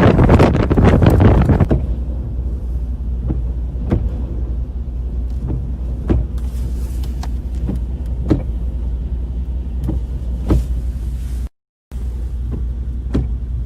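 Storm wind buffeting the microphone for about the first two seconds, then a steady low rumble with scattered sharp clicks, cut off briefly by a moment of silence near the end.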